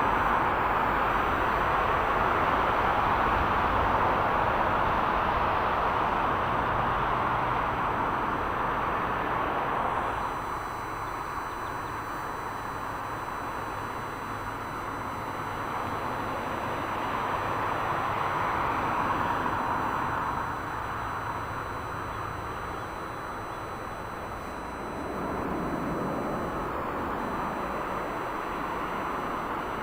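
Jet airliner engines on landing approach: a loud, steady rush that drops away about ten seconds in, swells again briefly in the middle, and gives way to a lower rumble near the end.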